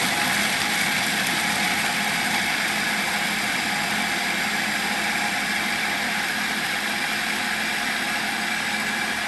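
Electric food processor running steadily, its blade grinding shelled walnuts into coarse crumbs.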